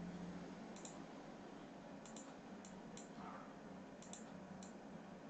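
Faint computer mouse clicks, several single clicks and some in quick pairs, over a steady low background hiss.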